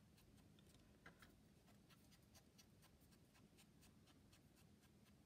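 Near silence with faint, quick scratchy taps of a foam ink blending tool being rubbed and dabbed around the edge of a small paper circle to ink it.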